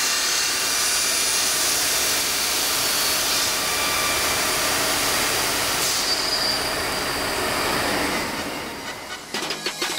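The diamond blade of a VOYAGER XP 5-axis CNC bridge saw, driven by its 27 hp arbor motor, wet-cutting through 2 cm porcelain under water coolant: a steady, loud, high-pitched grinding hiss with a faint whine. It fades near the end.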